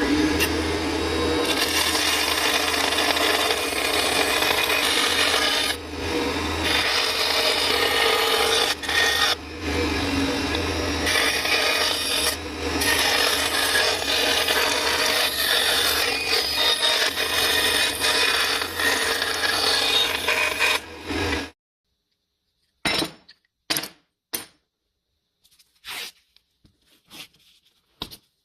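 An abrasive power tool grinding or sanding against material: a steady motor hum under a loud, rough scraping, with a few brief dips, cutting off about 21 seconds in. A few sharp clicks follow.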